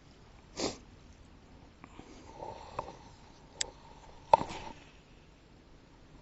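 A person's short sniff, followed by a few faint clicks and light handling knocks.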